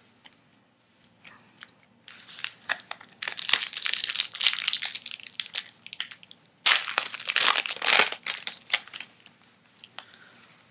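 Foil wrapper of a 2007 Bowman Chrome baseball card pack crinkling as it is handled and torn open. It comes in two spells of rustling, one starting about two seconds in and one about seven seconds in.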